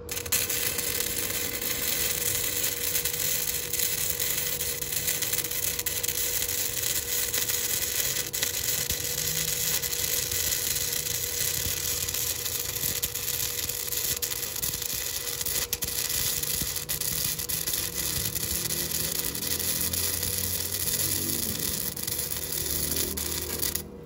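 Electric arc welder running a continuous weld on the metal frame: a steady crackling hiss that starts abruptly and cuts off abruptly about 24 seconds later.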